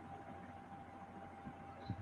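Quiet small-room tone: a faint steady high hum and low electrical hum, with a few soft low thumps, the clearest just before the end.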